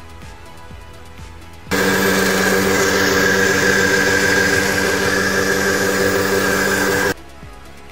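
Countertop blender motor starts about two seconds in and runs steadily for about five seconds, blending a liquid shake with eggs in the jug. It cuts off suddenly near the end.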